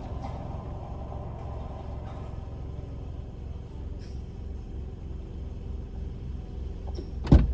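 Car running, a steady low rumble heard from inside the cabin; a sudden loud thump near the end.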